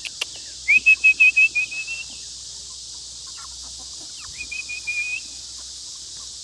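A person whistling quick runs of short, high, even notes to call a flock of Cornish Cross meat chickens: one run about a second in and a shorter one near five seconds.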